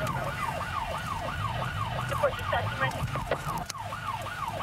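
Police car siren in yelp mode, a fast rising-and-falling wail repeating about three times a second, heard from inside a patrol car in pursuit. The car's engine and road rumble run underneath, with a single short click near the end.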